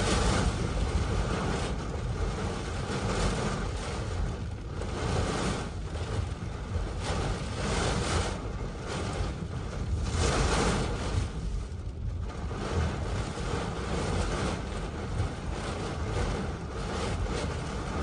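Hurricane eyewall winds and torrential rain, heard from inside a car: a continuous rush of wind and driving rain that swells and eases in gusts every few seconds, with heavy low buffeting underneath.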